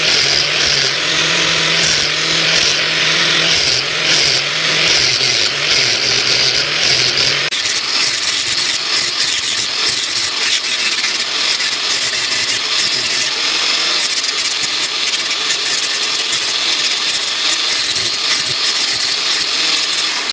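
A power tool running steadily on the steel of a knife being made from a leaf spring, with a harsh, loud hiss. The motor's low hum drops out about seven and a half seconds in, while the hiss continues.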